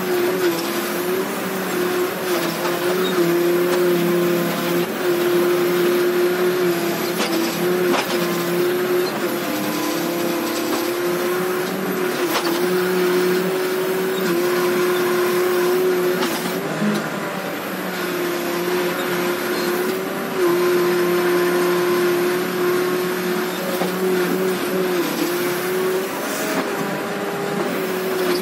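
Case 580 Super R backhoe loader's diesel engine and hydraulics running under load while the backhoe digs. There is a steady whine that briefly dips in pitch now and then, with a few sharp knocks.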